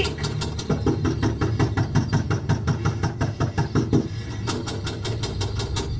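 Brass door knocker rapped hard and fast against a door, about five knocks a second, stopping briefly about two-thirds through and then starting again.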